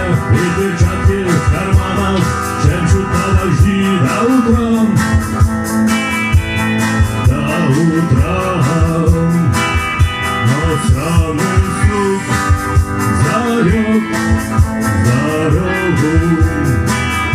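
Rock music: an instrumental passage with guitars over a steady beat.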